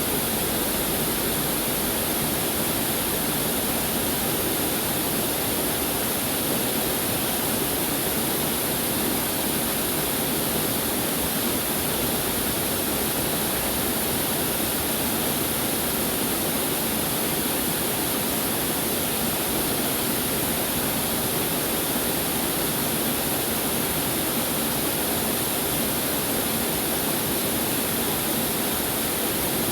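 Waterfall: falling water pouring onto rocks and a pool in a steady, unbroken rush.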